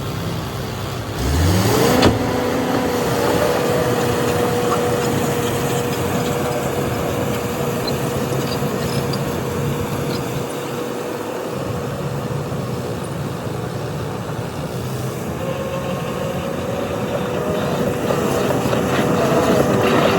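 Diesel engine of a heavy earthmoving machine revving up sharply about a second in, then held steady at high revs under load.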